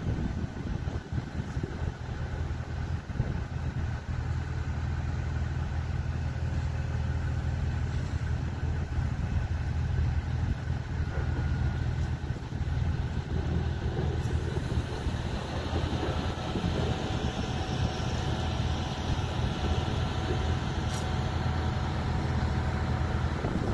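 Steady low drone of marine diesel engines from tugboats working alongside a large tanker, with a single faint click about 21 seconds in.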